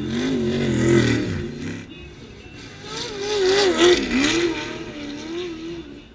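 Off-road desert race vehicle's engine revving hard as it pulls away, its pitch rising and falling over and over with the throttle. It swells loudest about a second in and again around four seconds in, then fades as it gets farther away.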